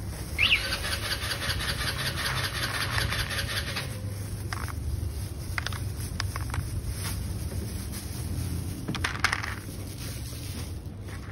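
Dry kibble rattling and crinkling in a plastic bag and dropping into a plastic feeding tray: a dense fast rattle for the first few seconds, then scattered clicks and rustles, over a steady low rumble.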